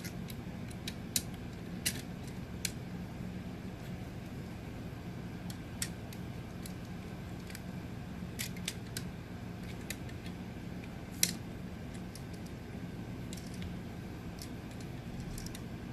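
Irregular small clicks and taps of a screwdriver and wire ends being worked onto a wall outlet's terminal screws, over a steady low hum.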